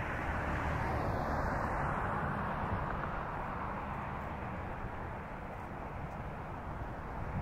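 Steady distant vehicle rumble and hiss, swelling slightly about a second in and then slowly easing.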